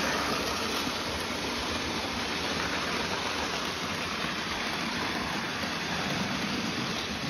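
Model diesel locomotives' electric motors whirring and their wheels rolling on the track as a long model train passes close by: a steady, even running noise.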